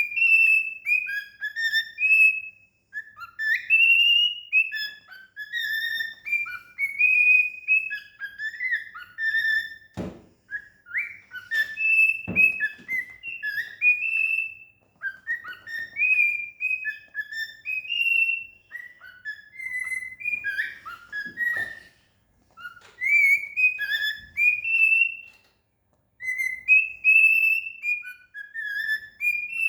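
Cockatiel whistling a song of short, clear notes that glide up and bend, in phrases broken by brief pauses. A few sharp knocks fall in among the whistling.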